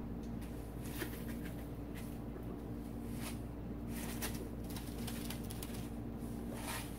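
Faint, steady low hum, with a few soft ticks scattered through it.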